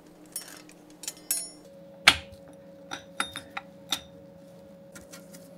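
Steel and friction clutch plates of a Ducati Hypermotard 1100S dry clutch clinking against each other and the clutch basket as the plate pack is fitted: a string of light metallic clinks, a few with a short ring, the sharpest about two seconds in.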